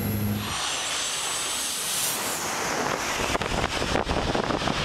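Jet airliner's engines on a low landing approach: a loud rushing roar with a high whine, taking over from a low drone that cuts off about half a second in. Wind buffets the microphone with crackling in the second half.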